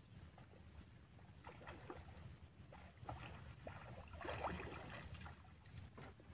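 Faint water lapping and slapping against a small boat's hull, a few soft splashes with the clearest about four seconds in, over a steady low rumble.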